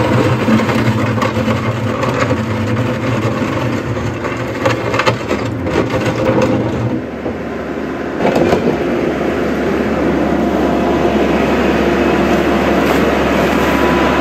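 Compact diesel tractor with a front-end loader running as it drives through shallow creek water. The engine sound changes about seven seconds in, then runs steady again.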